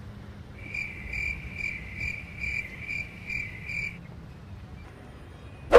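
A cricket chirping in eight short, evenly spaced pulses, about two a second, stopping about four seconds in. A sharp, loud click or knock comes right at the end.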